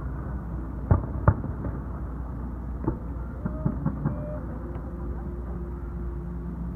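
Fireworks going off: two sharp booms about a second in, then a few smaller pops and cracks around three to four seconds, over a steady low background rumble.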